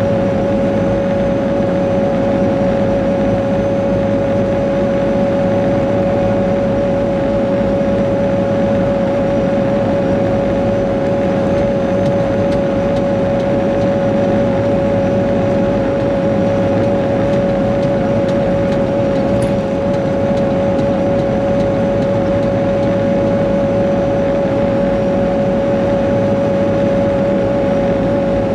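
Caterpillar 140G motor grader's diesel engine running at a steady load as the grader travels along a sealed road, heard from inside the cab. A steady high whine runs over the engine rumble.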